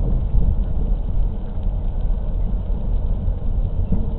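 Steady low rumble of a car driving on a wet road, heard from inside the cabin through a dashcam.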